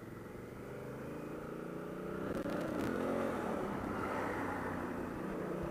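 Honda Africa Twin CRF1000L's 998 cc parallel-twin engine accelerating under way, its note rising, dipping once about halfway and climbing again.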